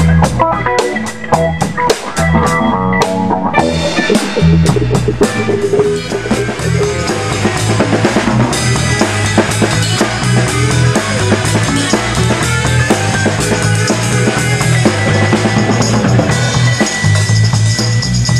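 Live band jam led by a drum kit played with sticks: sharp snare and rim hits with cymbals, then, about four seconds in, the full band comes in over a steady run of low bass notes.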